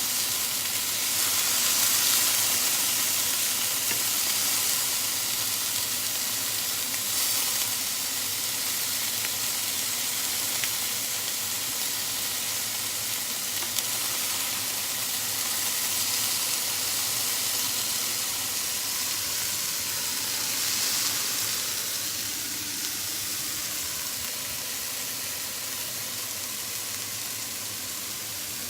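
Sliced chicken sizzling steadily as it fries in a hot pan, a dense crackling hiss that eases a little near the end.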